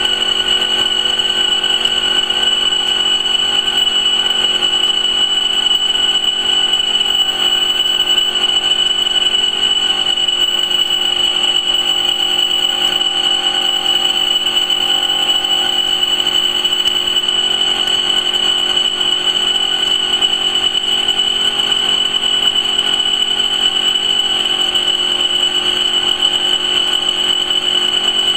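Two-head laser cloth-cutting machine with automatic feed running as it cuts fabric: a steady high-pitched whine over a lower hum.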